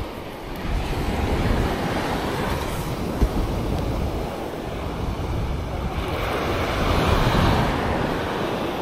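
Sea surf breaking and washing up a beach, swelling twice, with wind rumbling on the microphone. A single brief knock about three seconds in.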